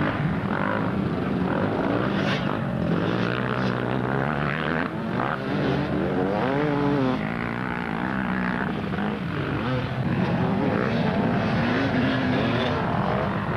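Dirt bike engines running and revving, their pitch rising and falling repeatedly over a steadier drone of another engine.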